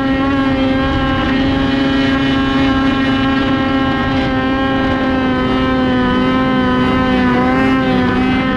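Snowmobile engine running at a steady high speed, a constant drone that wavers slightly in pitch, over a rushing noise underneath.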